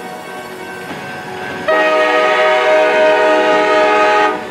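CSX freight locomotive sounding one long horn blast of about two and a half seconds, starting just under two seconds in, over the rumble of the approaching train.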